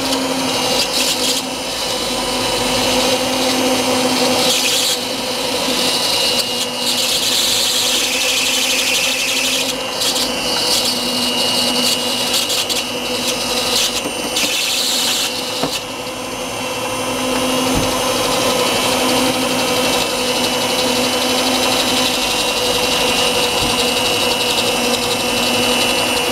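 Electric hand mixer running steadily with a constant motor whine, its beaters whipping an egg into creamed butter and sugar. Bursts of scraping against the stainless steel bowl come and go in the first half.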